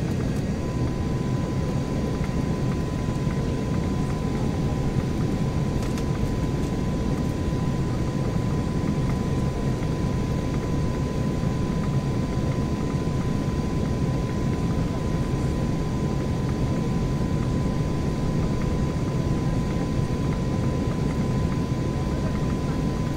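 Steady engine and airflow noise of an Embraer E175 airliner, from its two General Electric CF34 turbofans, heard from inside the plane, with a thin steady whine that begins about half a second in.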